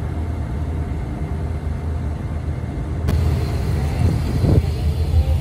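Steady low rumble of a car ferry under way: the vessel's engine drone mixed with water noise. It gets a little louder about three seconds in.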